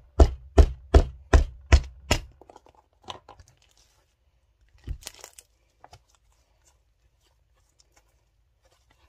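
Homemade slime being squeezed and folded by hand, giving a quick run of about seven sharp pops in the first two seconds, then a few softer ones and near quiet.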